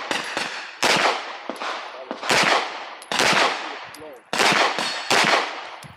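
Walther PDP Fullsize pistol firing single shots about a second apart, five in all, each trailing off with echo.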